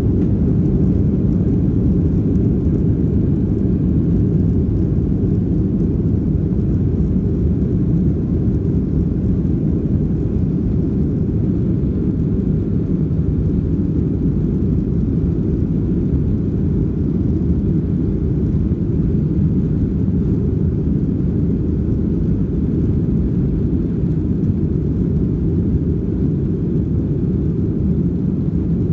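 Boeing 737-700 cabin noise from a seat over the wing while the airliner taxis: a steady low rumble of its CFM56 engines and airframe, easing slightly toward the end.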